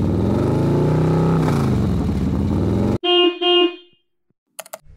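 An engine revving up and back down, rising and falling in pitch, that cuts off abruptly about three seconds in; two short horn toots follow, then a click near the end.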